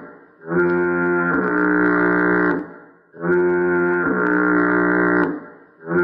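The SpongeBob fog horn sound effect: two long horn blasts of about two seconds each, with a third starting near the end. Each blast drops a step in pitch shortly after it begins.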